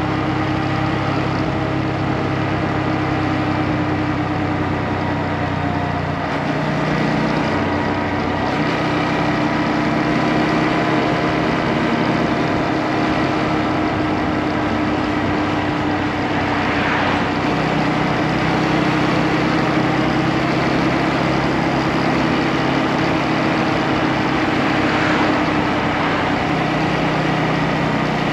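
Motorcycle engine running steadily, its note shifting slightly about six seconds in and again around seventeen seconds.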